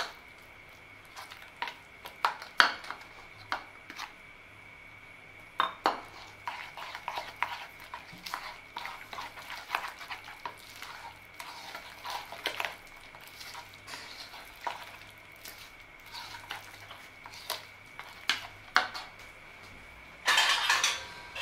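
Plastic spatula stirring and scraping thick pumpkin-and-flour batter in a plastic bowl, with irregular soft clicks and scrapes. A brief louder rustle comes near the end.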